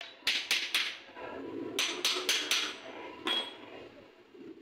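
Sharp metal-on-metal taps against a car AC compressor's housing, struck with a metal hand tool: a quick run of about four, a second run of four, then one more, each with a brief metallic ring.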